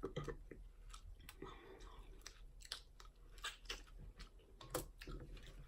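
A person chewing and biting into seafood-boil food, crab legs among it, with irregular crunchy clicks.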